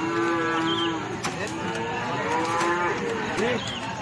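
Sheep bleating: two long, steady calls, the first in the opening second and the second starting about a second and a half in.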